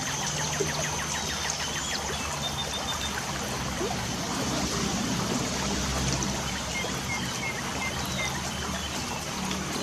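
Steady trickle of water from light rain in the wild, with birds chirping in short, scattered notes.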